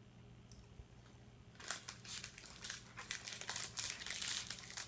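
A Cardigan Welsh corgi's claws scrabbling and clicking on a slick floor as she struggles for grip: a dense run of rapid scratches starting about a second and a half in.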